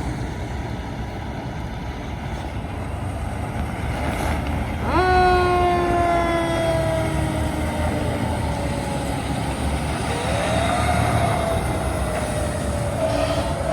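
Fire truck siren winding up sharply about five seconds in and then sliding slowly down in pitch, with a second rise and slow fall about ten seconds in. Under it runs the steady low rumble of the fire apparatus engines.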